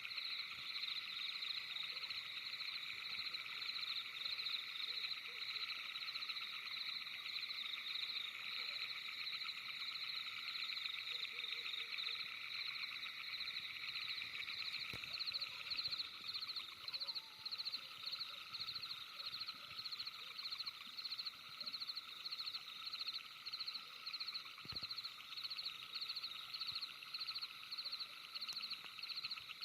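Night chorus of frogs: a dense, steady mass of rapid high calls. From about halfway through, one caller's regular beat of two or three calls a second stands out.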